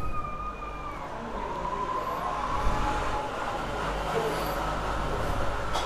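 Road traffic running by as a steady rumble, with a held high tone that stops about a second in.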